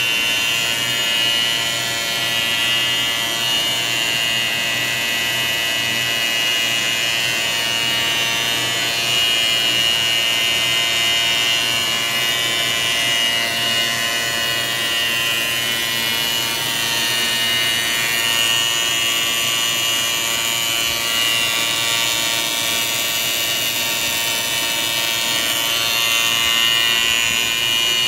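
Brush-trimming rig on a lathe running steadily: an electric motor-driven cutting head trimming the nylon bristles of a long brush roller, with a steady high whine.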